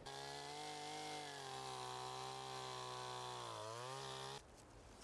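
Chainsaw cutting up a fallen tree, running on a steady high note. Its pitch dips briefly and recovers, then it stops abruptly about four seconds in.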